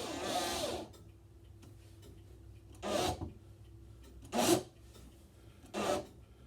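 Cordless drill-driver driving lock screws home into a wooden door in short squeezes: one longer run at the start, then three brief bursts about a second and a half apart.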